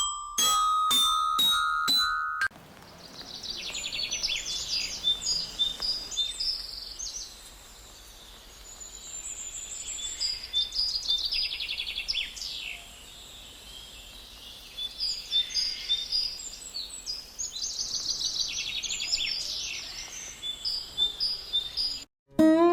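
A few ringing chime-like musical notes for about the first two seconds, then birds singing: repeated high chirps and fast trills in bouts of a few seconds, over a steady faint hiss. The sound cuts off just before the end.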